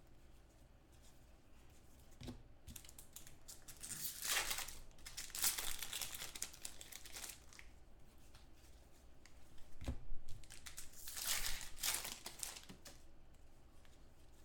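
Trading-card pack wrappers crinkling and tearing as packs are ripped open by hand. The rustling comes in spells, loudest about four to seven seconds in and again about ten to twelve seconds in, with a few small knocks.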